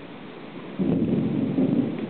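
Thunder rumbling, setting in suddenly a little under a second in over a steady hiss of rain. It is heard through a wireless security camera's microphone.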